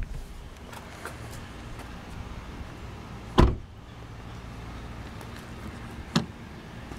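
A 2010 Kia Forte Koup's door being shut: a clunk at the start and a heavy thud about three and a half seconds in. A sharp click follows about six seconds in as the fuel filler door is flipped open.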